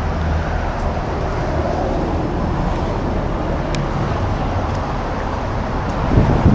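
Steady low engine rumble mixed with wind noise on the microphone, with a brief louder low bump near the end.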